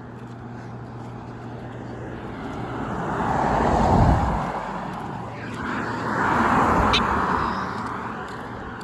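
Two vehicles drive past one after the other, their tyre and engine noise swelling and fading. The first peaks about four seconds in with a deep rumble; the second follows about two and a half seconds later.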